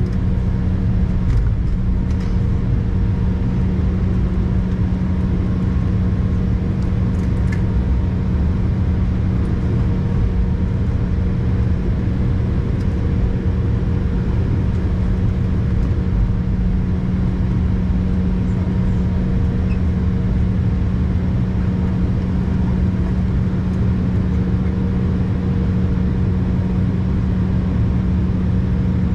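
Steady vehicle cabin noise: an even low rumble with a constant hum, with no break or change in level.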